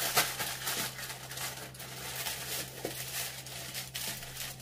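Plastic shower cap crinkling and rustling under the hands as a net cap is pulled on over it and adjusted, loudest at the start.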